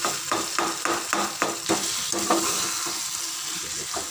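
Metal spatula stirring and scraping roasted eggplant bharta that is sizzling in oil in a steel pan, with quick strokes about three or four a second for the first couple of seconds, then fewer.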